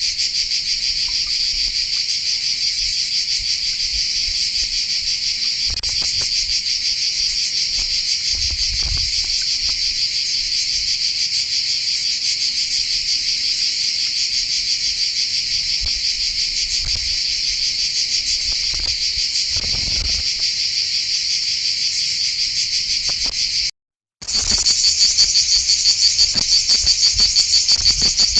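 Dense chorus of insects, a continuous high shrill trill. It cuts out for an instant near the end and comes back with a stronger, more even pulsing.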